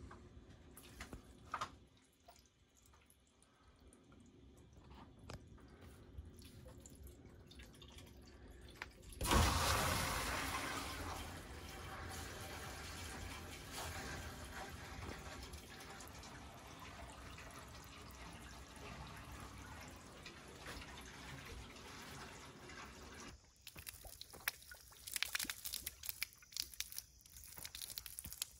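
Hose water rushing through PEX boiler loop pipes: it starts suddenly about a third of the way in, loudest at first, then settles to a steady hiss. Near the end, water pours from the open pipe end and splatters irregularly onto concrete.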